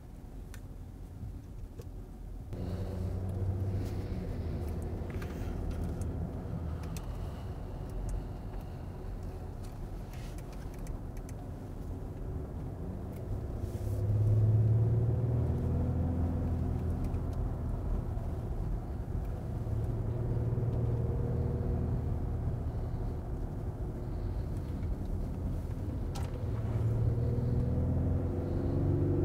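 Audi Q7 e-tron plug-in hybrid SUV being driven, heard from inside the cabin: a steady rumble of drivetrain and road noise. It steps up about two and a half seconds in and grows louder again about halfway through.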